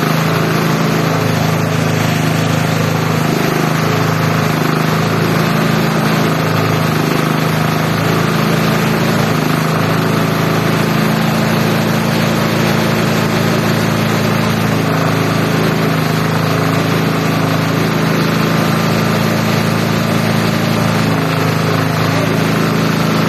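Multi-purpose chopper-shredder machine running steadily, a constant drone that holds one pitch throughout.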